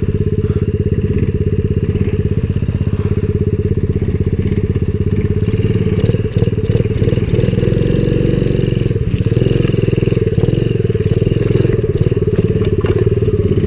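Coolster 70cc pit bike's small single-cylinder four-stroke engine running steadily, heard close up from the bike itself.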